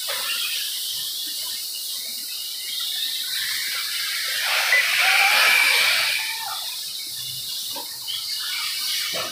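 1/8-scale electric RC buggies running on the track: a steady high-pitched hiss of motors and tyres, with one buggy swelling louder as it passes close about halfway through.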